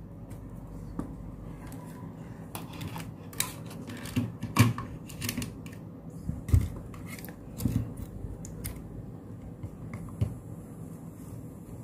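Scattered light clicks and taps of hands handling connecting wires and a small MP3 Bluetooth player module, over a faint steady low hum.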